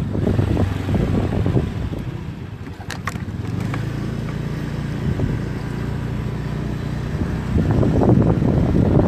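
Motorcycle engine running at a steady speed while riding, with wind buffeting the microphone at the start and again near the end.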